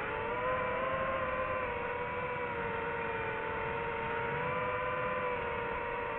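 Quadcopter motors and propellers whining in flight: several steady tones that waver slightly in pitch as the throttle changes.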